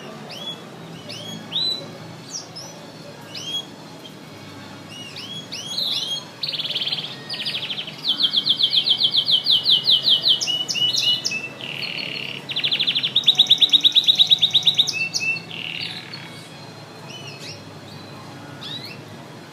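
Canary singing. Scattered short rising chirps build, a few seconds in, into loud runs of rapid trills, two long trill runs in the middle, then fall back to single chirps near the end.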